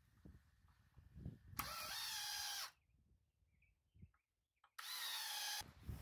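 Power drill run twice against a timber beam, each run lasting about a second at a steady pitch, the second a little shorter.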